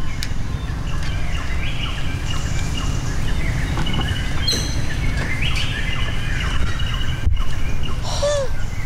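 Birds chirping and calling in short, repeated notes over a steady low rumble, with a brief call that rises and falls in pitch near the end.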